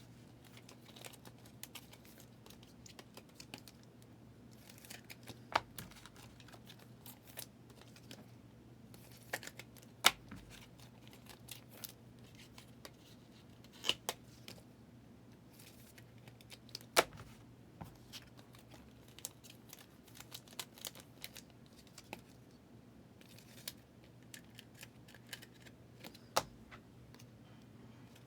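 Trading cards and their plastic sleeves being handled: scattered light clicks and soft rustles, a few sharper snaps among them, over a low steady hum.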